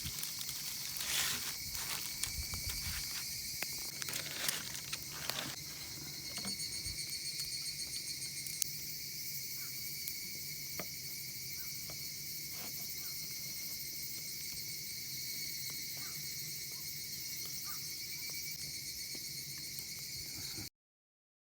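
Insects trilling steadily in a high, even chorus, with a few scattered clicks and knocks during the first several seconds. The sound cuts off suddenly near the end.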